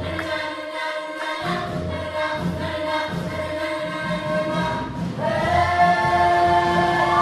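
A mixed vocal ensemble singing in close harmony over a steady low beat, swelling into a louder held chord about five seconds in.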